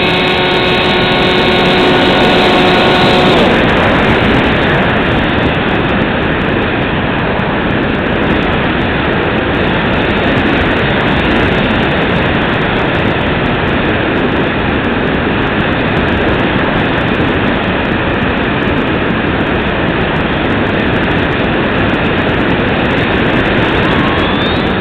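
Bixler 2 RC foam plane's electric pusher motor whining steadily for about three seconds, then cut off, leaving a steady rush of airflow over the airframe and onboard camera as the plane glides. Just before the end the motor whine comes back, rising in pitch as it spools up.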